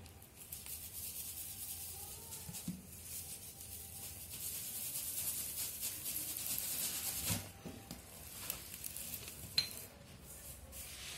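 Bristles of a long paint brush swept and rubbed over a woven plastic-strap cot, a dry rustling hiss that stops about 7 seconds in. Two short knocks follow, the sharper one about two seconds later.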